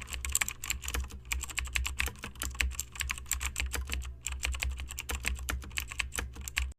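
Rapid typing on a keyboard, many keystrokes a second, with a brief pause a little after four seconds in, over a steady low hum.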